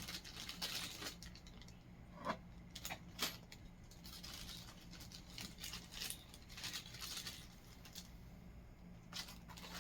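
Small hardware (screws and wall anchors) in a plastic bag being handled: faint rustling with scattered small clicks and taps.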